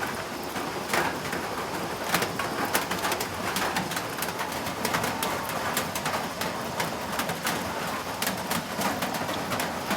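Steady rain with many scattered drips and patters, at an even moderate level.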